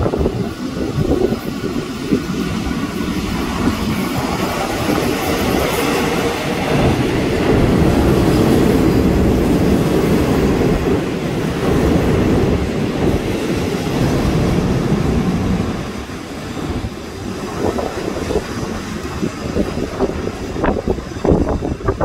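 Diesel passenger train running into a station past the platform: a steady rumble of wheels on rail with clickety-clack. It is loudest midway as the coaches pass close by, eases off about two-thirds of the way in, and then separate clacks follow.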